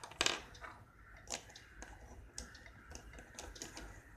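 Light, irregular plastic clicks and taps of Rubik's cube pieces being handled and fitted together as the cube is reassembled.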